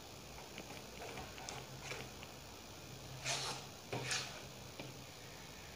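A metal spoon stirring thick batter in a ceramic bowl: faint scrapes and wet slaps, with two louder scrapes a little past the middle.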